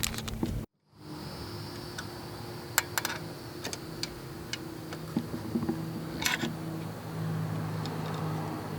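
Scattered light clicks and taps from hand tools and fuel-rail mounting hardware being worked on, over a steady electrical hum. The sound drops out briefly near the start.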